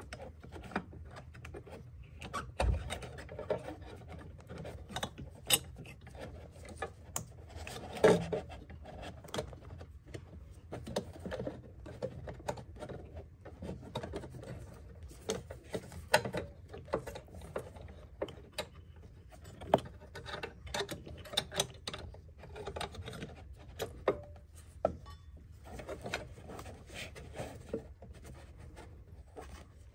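Gloved hands working on parts deep in a car's engine bay: irregular clicks, taps and rubbing of plastic and metal, with one louder knock about eight seconds in.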